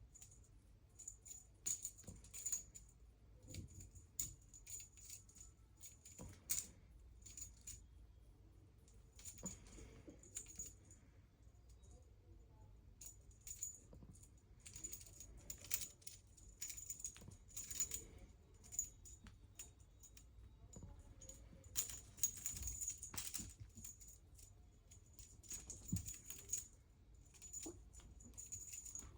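A small jingle bell jingling in irregular bursts, with short metallic rattles and clicks in between.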